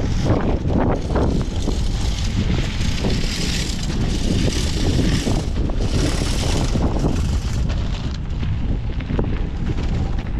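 Strong wind buffeting the microphone, a heavy low rumble that rises in gusts with stretches of higher hiss.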